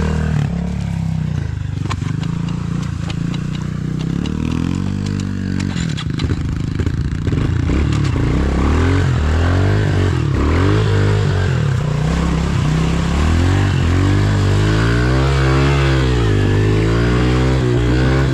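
Pit bike engine revving up and down as it is ridden hard, its pitch rising and falling with the throttle again and again. Rattles and knocks from the bike bouncing over rough ground run through roughly the first half.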